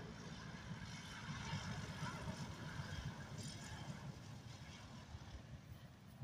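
Beechcraft V35B Bonanza's piston engine and propeller running at low power as the plane rolls out along the runway after landing. The sound swells over the first couple of seconds, then fades as the plane slows and moves away.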